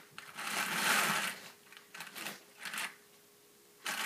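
A burnishing brush pressed against the big drum of a hand-cranked drum carder as the drum turns, packing the fleece down into the carding cloth: scratchy rasping strokes, the longest about a second in, shorter ones after, and another starting near the end.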